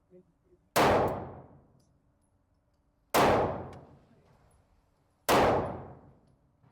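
Three handgun shots, about two seconds apart, each followed by a fading echo.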